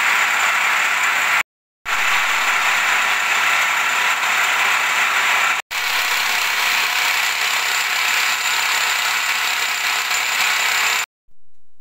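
Milling machine spindle at 1800 RPM driving a 6 mm end mill that cuts a keyway into a 4340 chromoly steel billet: loud, steady machining noise. It cuts out briefly twice and stops about eleven seconds in.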